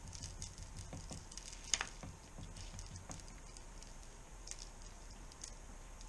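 A spoon scraping and tapping as eruption powder is spooned into the top of a plaster volcano model: faint soft scrapes and small clicks, with one sharper click a little under two seconds in.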